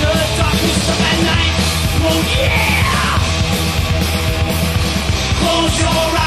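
Loud heavy metal band music playing steadily, with a sliding note that falls in pitch about two and a half seconds in.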